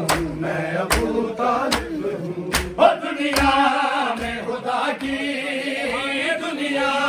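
Men's voices chanting a noha in unison, with the crowd's hand-on-chest matam slaps landing together on the beat, about one every 0.8 s. The slaps stop about three and a half seconds in while the chanting continues.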